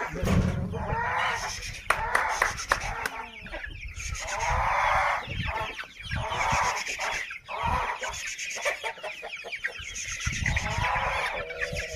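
Chickens clucking in a string of short, rough calls, one after another.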